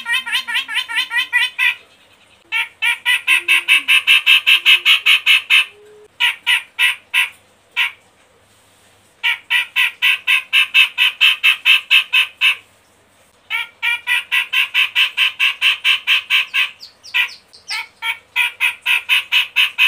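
Cucak jenggot (bearded bulbul) singing its chattering song: bouts of rapid, evenly repeated notes, about six a second, each bout lasting a few seconds with short pauses between.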